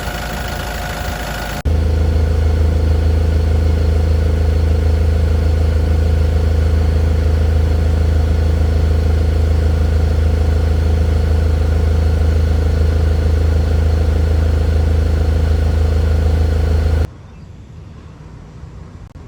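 Engine running at a steady idle with a deep, even hum. It starts abruptly a couple of seconds in, louder than the quieter engine sound before it, and cuts off sharply near the end.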